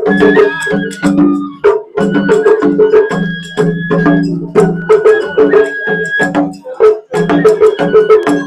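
Japanese festival float music (matsuri hayashi): a large taiko and small rope-tensioned shime-daiko drums struck in quick strokes, over held pitched melody notes.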